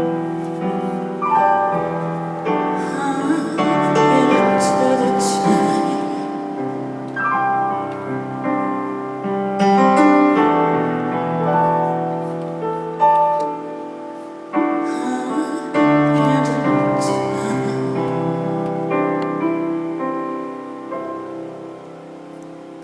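Piano playing a slow song, with a woman's singing voice at times. The music fades toward the end.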